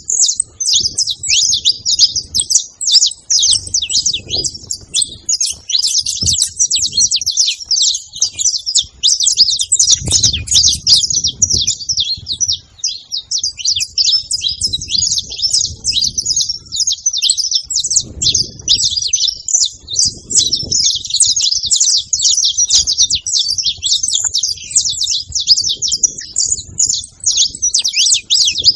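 Saffron finch (canário-da-terra) singing without a break, a fast, dense stream of high chirps and trills.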